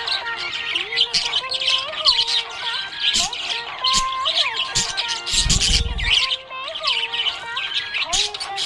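Budgies chirping and squawking continuously in quick, high twittering calls, over background music with sustained melodic notes. A short low rumble comes about five and a half seconds in.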